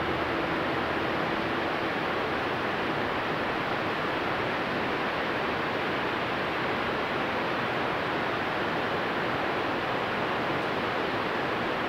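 Steady roar of the Boka waterfall, a tall waterfall's falling water making an even, unbroken rushing noise.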